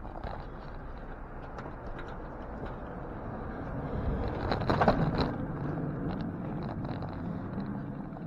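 City street traffic noise, louder for a moment about five seconds in, with faint clicks and rattles throughout.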